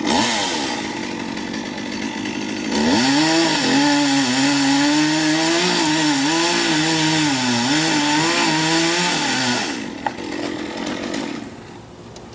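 Gas chainsaw running quietly, then opened up to high speed about three seconds in, its pitch dipping and rising repeatedly as under load, before dropping back to a lower level near the end.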